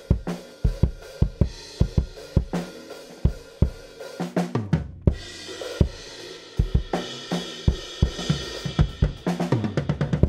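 Multitrack drum-kit recording playing back, with the kick drum compressed by a CLA-2A optical compressor plugin to thicken it. Steady kick beats under snare and cymbals, with a quick run of drum hits near the end.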